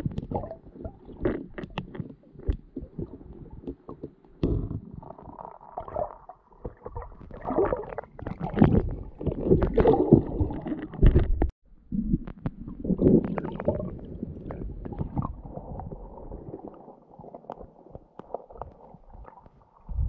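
Muffled, irregular rumbling and sloshing with scattered knocks, picked up by a camera held under water as a skin diver swims and moves through the lake water.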